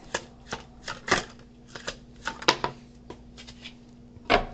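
A deck of tarot cards being shuffled by hand: a run of irregular, quick clicks and slaps of card on card, the loudest near the end.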